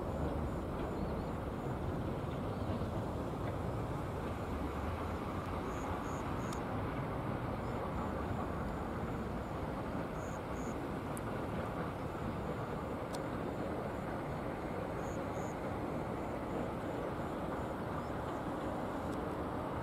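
Steady low outdoor rumble at an even level throughout, with a few faint clicks.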